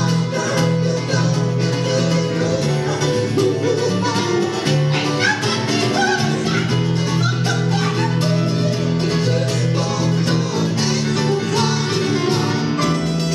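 A small live band playing: acoustic guitar, electric bass guitar and keyboard, with a singer's voice over them at times.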